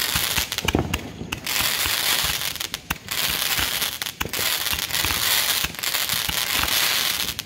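A consumer firework firing a run of shots into the sky, about five in a row. Each begins with a sharp pop and goes on into a hissing crackle of sparks lasting a second or so.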